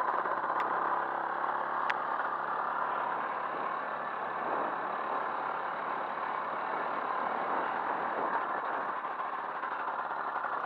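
Motorcycle engine running steadily while riding, mixed with wind and road noise on a bike-mounted microphone; two sharp clicks in the first two seconds.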